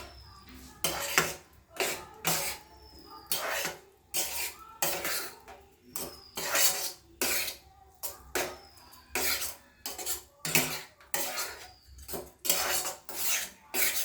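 A spoon scraping and clattering against a pan in quick strokes, about two a second, as soaked sago is stirred into melted jaggery.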